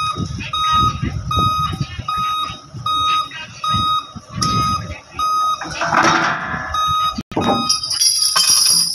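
Backup warning beeper on heavy equipment beeping steadily, about once every three-quarters of a second, over a low irregular rumble. A short rush of noise breaks in about six seconds in, and a high hiss comes near the end.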